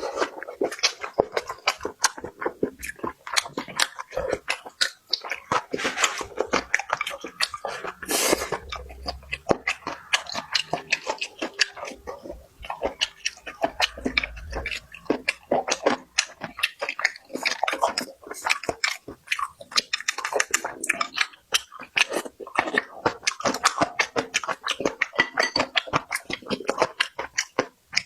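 Close-up chewing and eating mouth sounds: a dense, irregular run of quick wet smacks and clicks as someone chews food.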